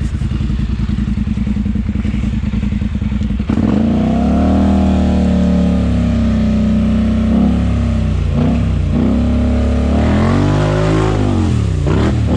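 Polaris ATV engine running at a steady low speed, then revved up sharply about three and a half seconds in and held under throttle, its pitch rising and falling in several swells near the end.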